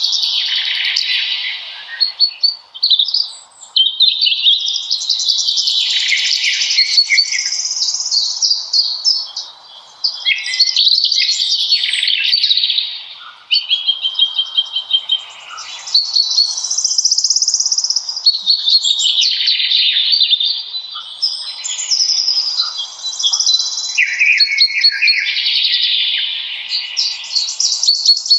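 Songbirds singing in the forest: loud, busy song phrases of a few seconds each with short pauses between, one after another throughout.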